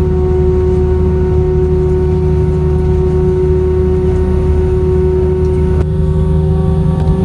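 Steady low rumble and hum of an Airbus A319-132 heard inside the passenger cabin on the ground, with its engines running at idle, including a constant mid-pitched whine. The whine shifts slightly about six seconds in.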